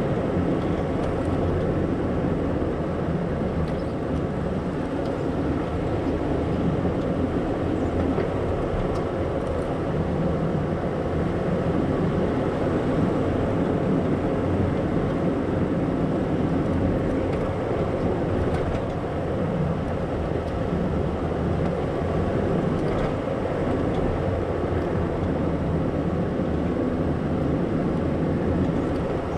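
Toyota 4Runner crawling up a rocky, leaf-strewn dirt trail: engine and tyres rolling over dirt and stones make a steady rumble.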